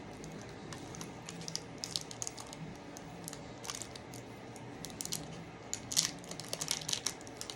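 Faint scattered crinkles and small clicks from a stroopwafel snack being handled, coming thicker near the end.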